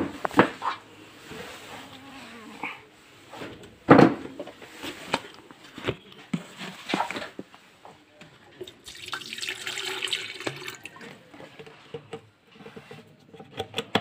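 Water poured from a plastic bottle into an empty stainless-steel electric kettle, a steady splashing for about two seconds some nine seconds in. Before it come knocks and clatter from handling the kettle, the loudest about four seconds in.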